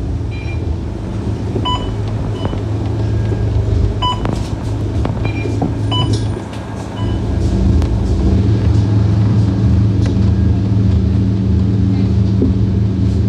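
Scania K230UB bus's diesel engine idling steadily, heard from inside the cabin while the bus stands at a stop. Short electronic beeps repeat every second or so, typical of fare-card readers as boarding passengers tap in.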